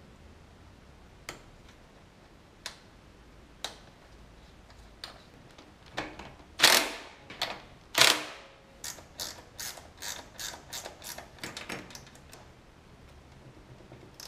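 Metal clicks and clatter from hand work on a Honda Cub's rear drive chain and sprocket. A few separate clicks come first, then two louder rattling clatters about six and eight seconds in, then a run of quick clicks, about three or four a second.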